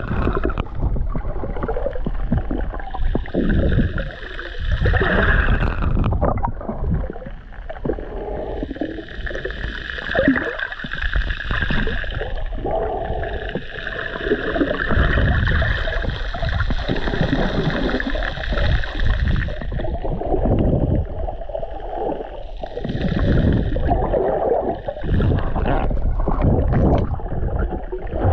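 Muffled underwater sound picked up by a submerged camera: irregular swells of water sloshing and gurgling. A higher whining hum fades in and out several times.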